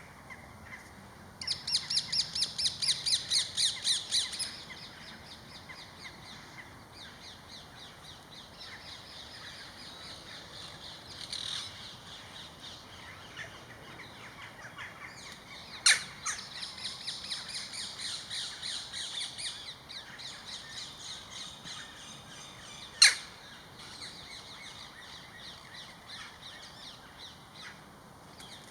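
Wild birds calling: a rapid run of loud, high repeated chirping calls starts about a second and a half in and lasts about three seconds, with a second run around the middle and softer chirps in between. Two sharp clicks stand out, one about halfway through and one later.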